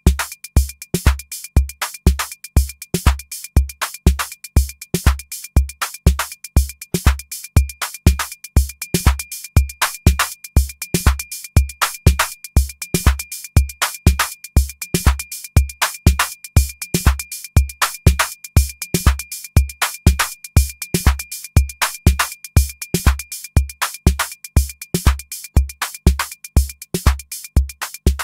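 Electronic drum-machine pattern driven by a MIDI step sequencer: a kick drum about twice a second under quick, sharp hi-hat-like ticks. Some hits are louder than others because accents are set on those steps. A faint steady high tone sits under the beat.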